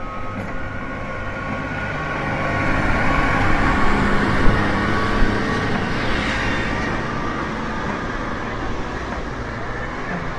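Road traffic passing close by: a heavy truck and a car. Engine and tyre noise swell to a peak about five seconds in, then fade.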